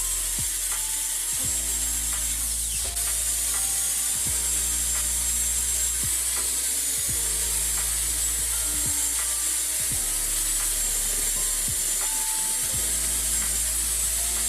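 Power tool abrading rusty metal: a steady high rasp with a thin, slightly wavering whine, over background music whose low chords change every second or two.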